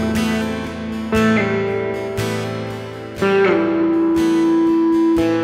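Instrumental intro of a country-style song: strummed acoustic guitar under a held lead melody that slides up into a new note about a second in and again a little past the middle, over a beat about once a second.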